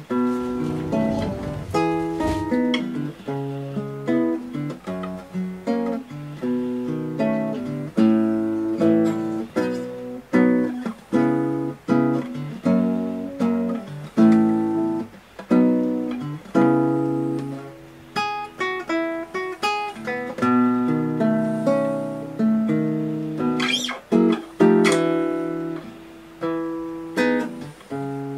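Acoustic guitar music: picked notes and chords, each note ringing out and fading.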